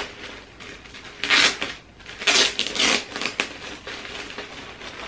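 Clear plastic garment bag crinkling and rustling in several bursts as a sweater is pulled out of it, loudest about one and a half and two and a half seconds in.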